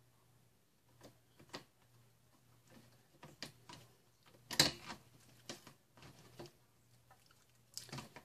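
Slime being worked by hand: scattered soft sticky clicks and squelches, the loudest about halfway through, over a faint steady hum.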